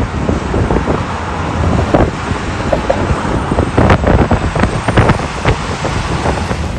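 Road noise from a moving vehicle: a steady low rumble and hiss, with wind buffeting the microphone in short irregular gusts.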